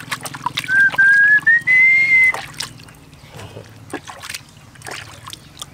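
Light splashing of water in a plastic tub as a baby monkey is washed by hand. Near the start comes a loud, high, thin whistle that rises in pitch over about a second and a half, broken into a few short pieces.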